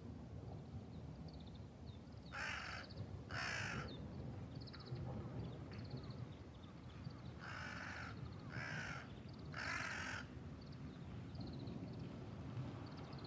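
A crow cawing in two bouts of harsh calls: two caws, a pause of a few seconds, then three more.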